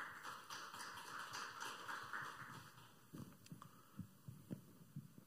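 Faint applause from a small audience, dying away after about two and a half seconds, followed by several soft low thumps of a podium microphone being handled and adjusted.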